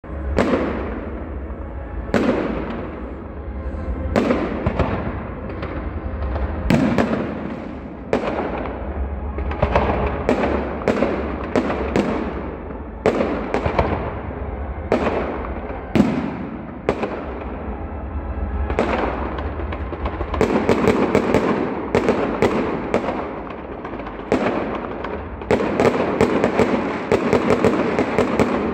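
Aerial fireworks display: a steady succession of shell bursts, each a sharp bang with a fading rumble. From about twenty seconds in the bursts come faster and overlap into dense volleys.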